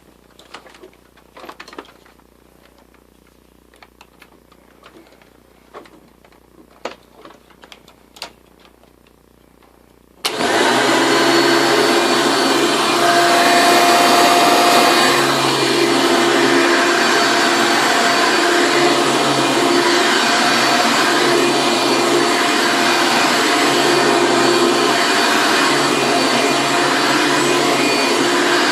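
Hoover Legacy vacuum cleaner: a few clicks and knocks of handling, then the motor switches on suddenly about ten seconds in and runs loud and steady with a whining hum.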